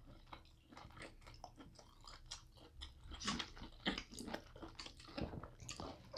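Quiet chewing and mouth smacks of people eating lobster tail meat: a run of small clicks that grows busier after about three seconds.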